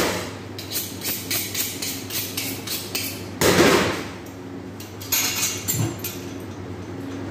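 Butcher's knife being honed on a sharpening steel: a run of quick metallic strokes, about three or four a second, with a louder clatter about three and a half seconds in and a few more knocks near the end, over a steady machine hum.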